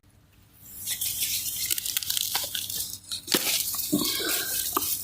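Dry corn leaves and husks rustling and crackling as the plants are handled to pick the ears, with scattered crisp clicks and a sharper crack about three seconds in.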